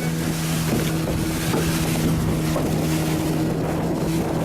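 Fishing boat's engine running at a steady, even hum, under a constant rush of wind and water.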